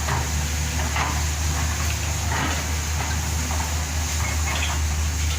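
Backhoe's diesel engine running steadily with a low hum, with a few brief knocks over it.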